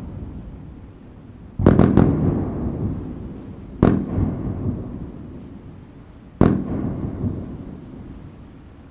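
Fireworks sound effect: sharp bangs, each trailing off in a rumbling echo. A quick cluster of about three cracks comes about one and a half seconds in, then single bangs at about four and about six and a half seconds.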